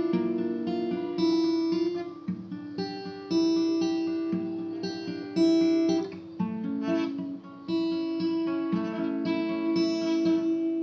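Acoustic guitar played fingerstyle: a slow broken-chord picking pattern (strings 4-3-2-3-1-3-2-3) moving through the song's chord shapes, each note ringing on into the next.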